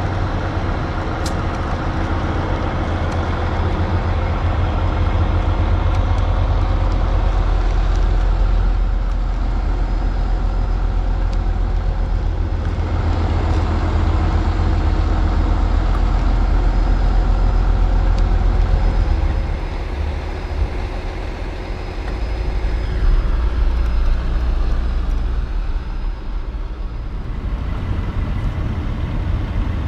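Diesel engine of a loaded Kenworth W900B logging truck running at low speed, a steady deep rumble that dips briefly about twenty seconds in.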